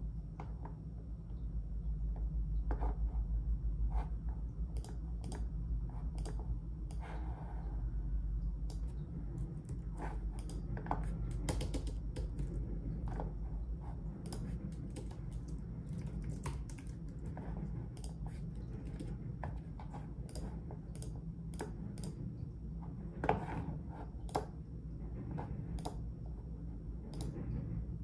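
Typing on a computer keyboard: irregular keystrokes in short runs and pauses, over a steady low hum.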